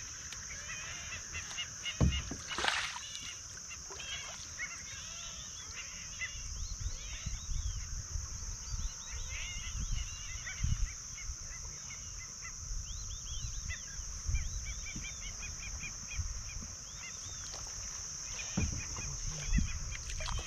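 Birds calling at dusk over a river, many short chirps and calls throughout, over a steady high-pitched whine. Scattered low knocks and bumps from the kayak and paddle, the strongest about two seconds in.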